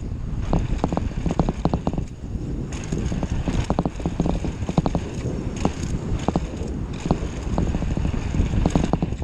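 Mountain bike descending fast on a rough dirt and gravel trail: a steady rumble of knobby tyres on the ground, broken by frequent irregular clicks and rattles from the bike jolting over bumps and stones.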